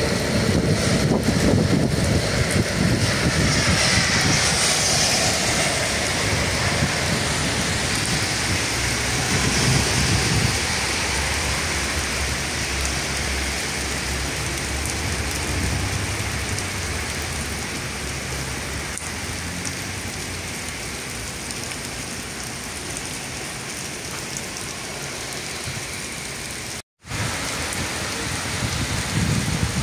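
Heavy rain pouring down and splashing on pavement, a steady rushing hiss. A low rumble underneath fades over the first ten seconds or so, and the sound cuts out for a moment near the end.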